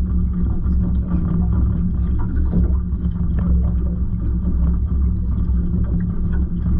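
Tiller outboard motor on a small aluminum fishing boat running steadily, a constant low rumble with a few light knocks and ticks of gear on the hull.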